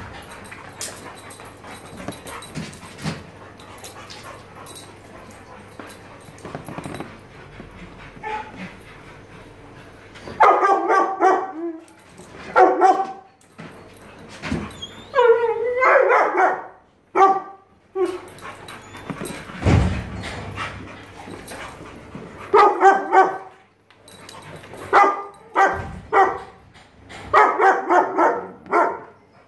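A boxer and a Border Collie puppy play-fighting: at first only scuffling and light knocks, then from about ten seconds in, repeated bursts of barking and yapping, some drawn out into whines that slide up and down.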